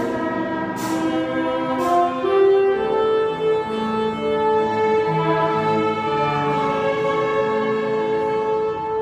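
Youth string orchestra of violins and cellos playing a slow piece in long, sustained notes, with a long held melody note from about two seconds in.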